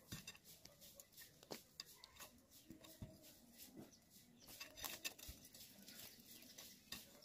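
Near silence with a few faint scattered clicks and taps.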